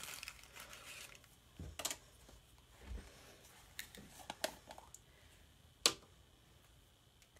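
Light clicks and taps as a small jar of chalk paste is picked up and its screw-top lid twisted off, with one sharp click about six seconds in.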